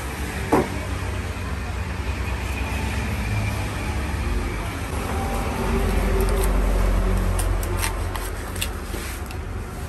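Low, steady rumble of road traffic that swells for a couple of seconds past the middle as a vehicle passes. A sharp knock comes about half a second in, and a few short clicks near the end as a knife cuts into a tuna on a wooden chopping block.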